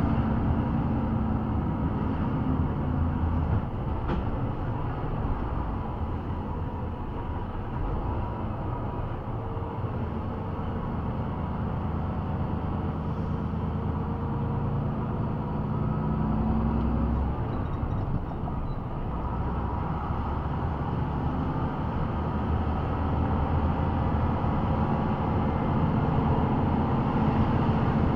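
Engine and road noise of a heavy road vehicle driving, a steady low rumble with the engine note rising and falling a few times.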